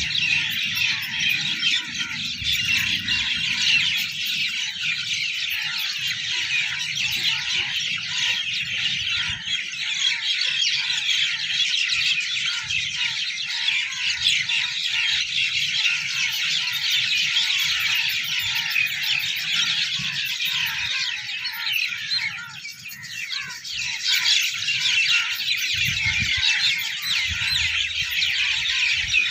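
A dense chorus of many small birds chirping without a break, with a lower call repeated over and over beneath it and a low rumble underneath.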